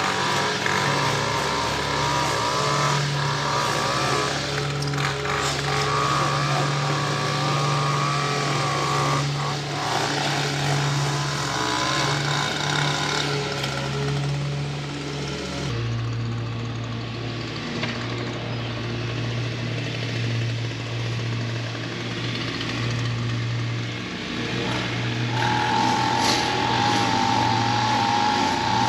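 Small gasoline engines of lawn equipment running steadily, a constant motor hum under a noisy wash. About halfway through, an abrupt cut switches to another engine at a lower steady pitch, with a higher whine joining near the end.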